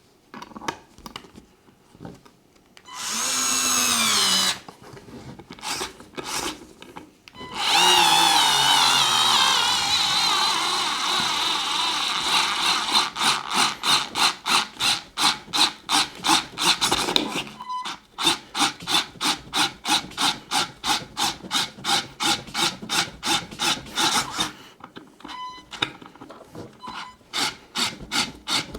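Parkside PARS 4 A1 4-volt cordless screwdriver driving a screw: a short motor whine rising in pitch, then a longer run. After that comes an even clicking, about three clicks a second, typical of its torque clutch slipping once the screw is seated.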